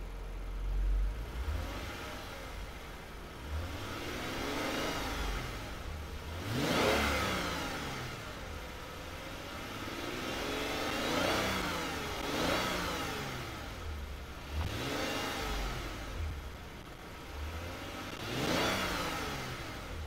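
Lexus IS 350's six-cylinder engine idling and being revved about six times, each rev climbing and dropping back to idle.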